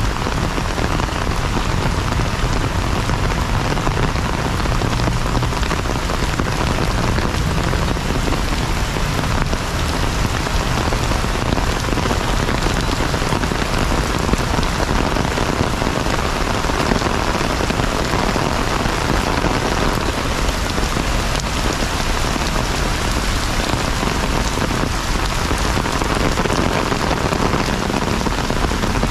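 Heavy rain falling steadily on wet pavement.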